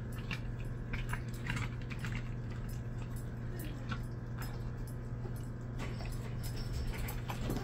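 Dog licking and chewing in a stainless steel food bowl, with scattered short wet clicks and taps, over a steady low hum.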